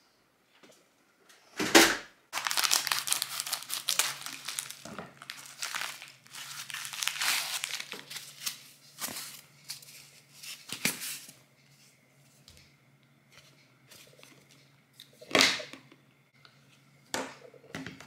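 Paper packaging crinkling and tearing as a parcel is unwrapped by hand, for about nine seconds, then a couple of short handling knocks near the end. Just before the unwrapping there is a single loud thud.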